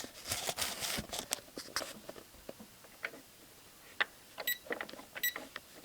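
Cash register keys clicking under a few taps, then two short electronic beeps from the register, the second about a second after the first.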